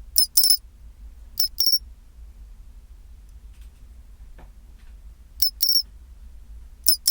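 Pine cricket (matsumushi, Xenogryllus marmoratus) singing its high 'chin-chiro-rin' call: four short phrases in two pairs, each a brief note followed by a slightly longer one, over a low steady hum.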